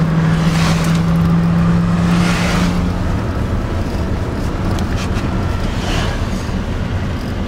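Car driving on a dirt road, heard from inside the cabin: the engine runs with a steady low hum that eases off about three seconds in, over continuous tyre and road noise.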